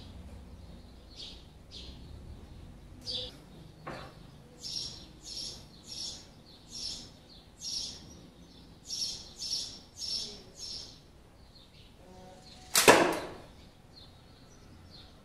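A slingbow rifle shooting an arrow: its stretched rubber bands are released with one loud, sharp snap near the end. Before it comes a run of short high-pitched chirps, about two a second.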